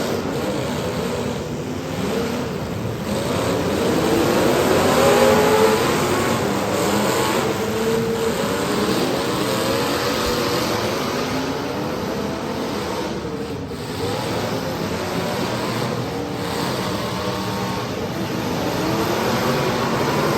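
Several demolition derby car engines running and revving at once, their pitches rising and falling over each other.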